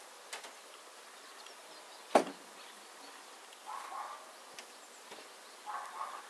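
Honeybees buzzing close past the microphone twice, with one sharp wooden knock about two seconds in from the hive parts being handled, and a few faint clicks.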